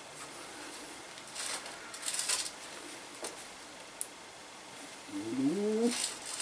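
Small clinks, scrapes and rag rubbing from hand work on a bicycle's bottom bracket bearing cup, with a sharp click about four seconds in. Near the end comes a short call that rises in pitch, the loudest sound.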